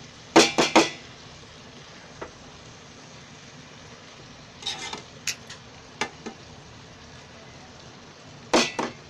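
Spatula stirring ivy gourd curry in a nonstick pan: short clusters of scrapes and knocks against the pan about half a second in, around five and six seconds in, and near the end. Under them runs a steady faint sizzle of the vegetables cooking.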